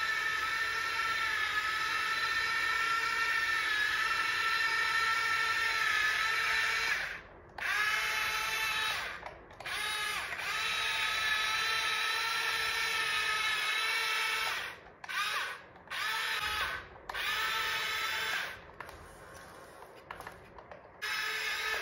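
Small electric gear motor of an RC model vehicle whining steadily, then stopping and starting again in a series of short runs, the pitch rising briefly at each start.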